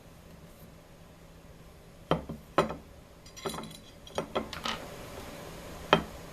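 Sharp clicks and knocks of hard objects being handled and set down, about six of them in the second half, over a steady low hum.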